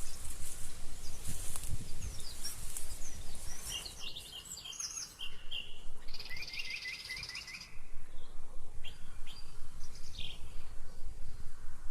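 Small birds chirping and trilling, with short repeated calls over uneven low background noise that dips about four seconds in and comes back near eight seconds.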